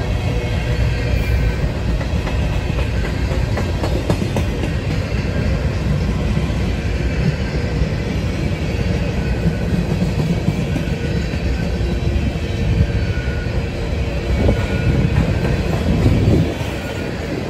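Freight cars of a Norfolk Southern manifest train rolling past at close range: a steady rumble of steel wheels on rail, with clickety-clack as the wheels pass over rail joints.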